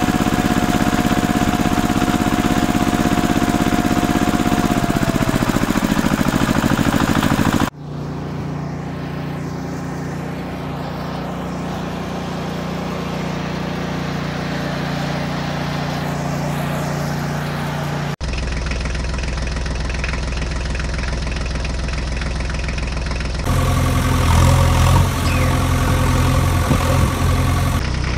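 Engine sounds running steadily in several separate stretches, with abrupt switches between different engine recordings about a quarter, two thirds and four fifths of the way through; a high whine over the first engine fades out after about five seconds.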